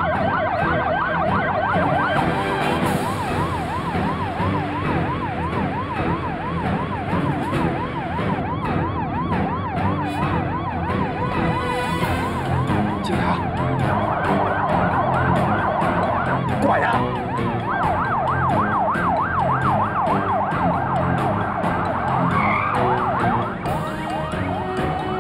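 Police car sirens in a fast yelp, the pitch sweeping up and down about three times a second. Several sirens overlap at the start and again from about fourteen seconds in, thinning to one for a moment just before.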